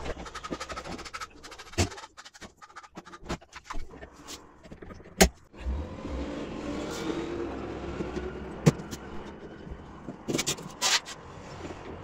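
Clicks and knocks of plastic covers, screws and tools being handled while a refrigerator's control-board housing is taken apart. Sharp single clicks come about five and nine seconds in, and a quick run of clicks near the end. A steady low rumble sits underneath from about halfway.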